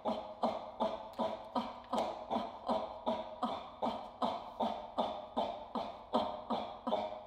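A woman's voice performing from a written score, chanting short repeated syllables in a steady rhythm of about two a second, each sharply struck and dying away. The chanting stops abruptly at the end.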